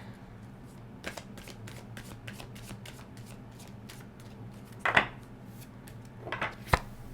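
A tarot card deck being shuffled by hand: a run of light, quick card flicks, with a louder slap about five seconds in and a sharp snap of a card near the end.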